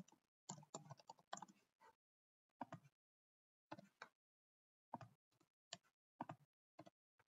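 Computer keyboard keys and mouse buttons clicking faintly: a quick run of keystrokes in the first two seconds, then single clicks every half second to a second.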